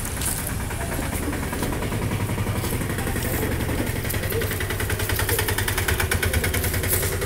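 An engine idling with a rapid, even pulse, a little louder from about two seconds in.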